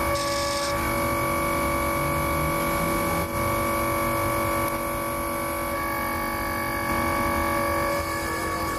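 Steady whine of a workshop ram press's motor running, with a brief hiss near the start. About six seconds in the whine shifts as the ram comes down onto a gear and bearing assembly.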